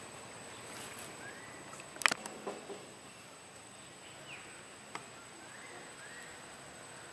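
Quiet outdoor ambience: a steady high-pitched whine, a few faint bird chirps, and a sharp tap or snap about two seconds in, followed by a couple of softer ticks.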